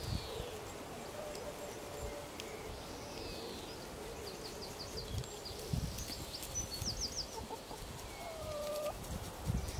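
Domestic hens clucking, with high chirps from small birds around them.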